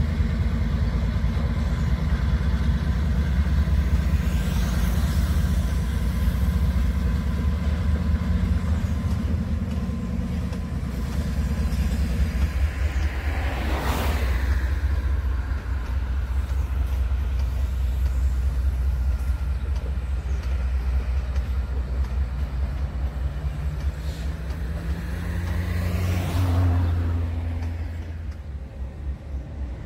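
Two diesel-electric freight locomotives pass with their engines running, the engine tone fading about 12 seconds in as they move away, followed by a string of empty freight wagons rolling on the track with a steady low rumble. Road vehicles pass close by twice, about 14 seconds in and near the end.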